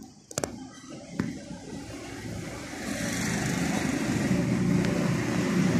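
A motor vehicle's engine rumble grows steadily louder, like traffic drawing near, after two sharp clicks in the first second or so.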